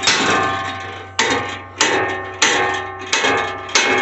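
A 4-pound sledgehammer striking a seized, rusted steel bolt on a trailer frame. About six blows land a little over half a second apart, each followed by a ringing metallic tail that fades before the next.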